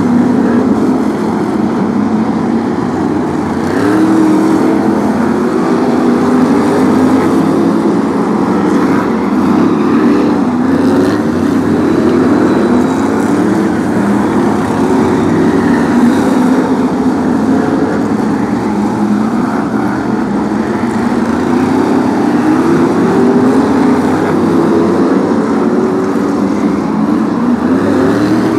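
BriSCA F1 stock cars' V8 engines racing, several cars at once, revving up and falling back over and over as they go round the track.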